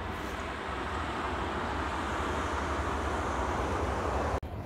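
Distant highway traffic: a steady rush of tyre noise that swells gradually as vehicles pass, then cuts off suddenly near the end.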